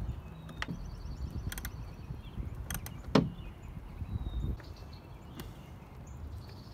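Wind rumbling on the microphone, with a few sharp clicks and taps of a hand tool on the plastic cowl cover as its 8 mm bolts are undone. The loudest click comes about three seconds in.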